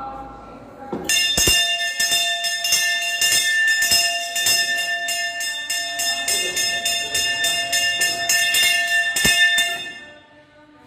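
Brass temple hand bell (ghanta) rung rapidly and continuously, about three strikes a second, with its bright tones ringing on. It starts about a second in and stops shortly before the end, as it is rung during the temple ritual.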